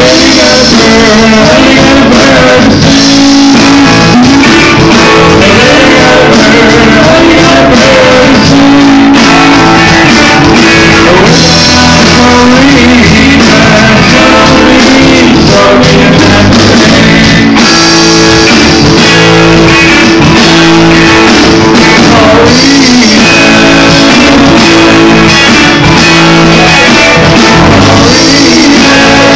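Live rock band playing loud: two electric guitars and a drum kit, with singing.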